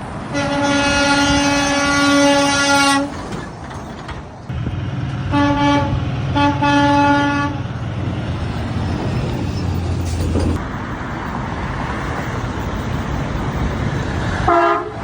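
Semi truck's air horn: one long single-tone blast of about three seconds, then after a pause three shorter blasts. A truck's diesel engine runs underneath the second set as it passes.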